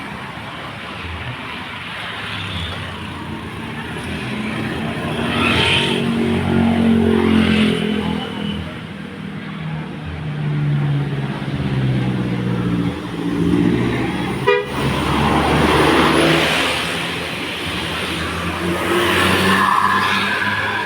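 A tour bus's Basuri 'telolet' musical air horn playing a tune, its notes stepping from pitch to pitch, over the running bus. Louder rushes of noise come about fifteen seconds in and again near the end.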